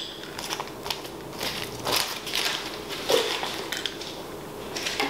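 Kitchen handling noises: a metal tablespoon scraping and clinking in a small measuring cup of ice water as spoonfuls are tipped into a food processor bowl, heard as scattered short clicks and crunches.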